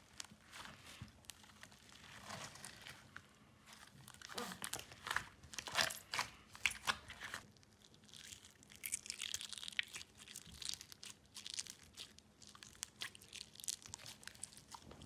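Slime being squeezed, pressed and pulled apart by hand, giving irregular crackling, crinkling clicks and small sticky pops that come in louder bunches partway through.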